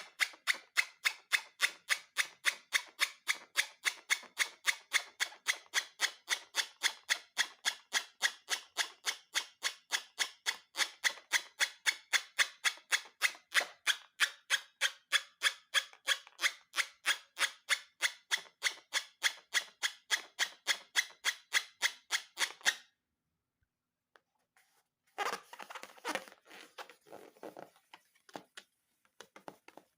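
A rapid, very even series of crisp clicks, about three a second, that stops suddenly about 23 seconds in; after a short pause come a few seconds of irregular rustling and crinkling.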